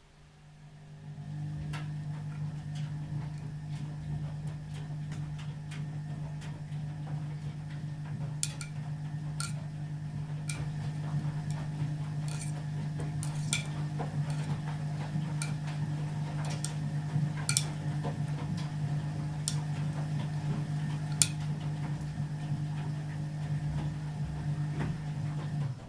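The new drain pump of an Ardo washing machine running with a steady low hum, starting about a second in and cutting off suddenly near the end. Irregular sharp clicks and ticks sound over the hum.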